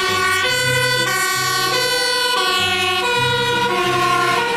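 Toy fire truck's electronic siren sound played through its small built-in speaker: a buzzy tone whose pitch steps up and down about twice a second.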